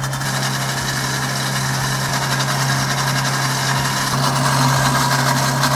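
Riviera & Bar Pro 'Le Boss' countertop blender running on its beat setting, whipping egg yolks, mustard, lemon juice and olive oil into mayonnaise: a steady motor hum with a whirring rush over it, cutting off abruptly at the end.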